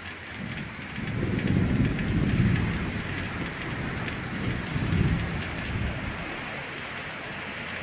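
Thunder rolling for several seconds, swelling about a second in and again near five seconds, then fading, over a steady hiss of rain.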